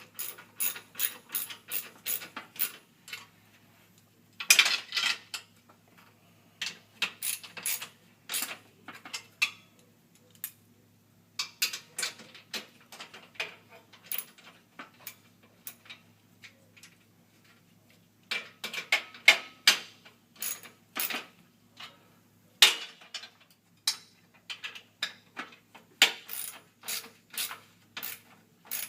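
A 1/2-inch socket ratchet clicking in quick runs while it tightens the center bolts of a table base, with short pauses between the runs.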